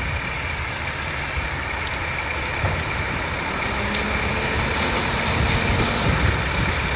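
Heavy diesel machinery running steadily, a low engine rumble under a broad noisy wash that swells slightly toward the end.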